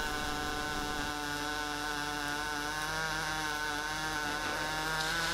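Pulsed MIG/MAG welding arc running steadily on a steel pipe joint, laying the second cap pass: an even, continuous pitched hum. The hum comes from the current pulsing hundreds of times a second.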